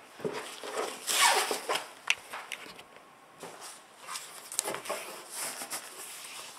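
Foam-backed headliner fabric being handled and pressed into a fiberglass targa top panel for a pre-fit: irregular rustling and scraping strokes, the loudest about a second in.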